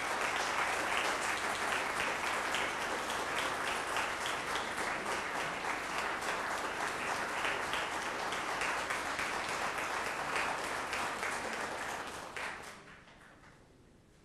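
Audience applauding: many hands clapping steadily, then dying away near the end.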